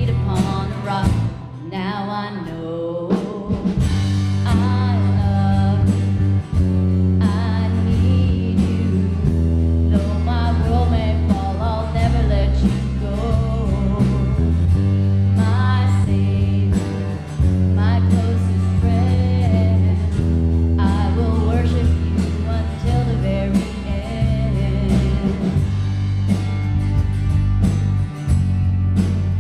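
A worship song with a singing voice over a band, led by an electric bass playing sustained low notes that change every second or two.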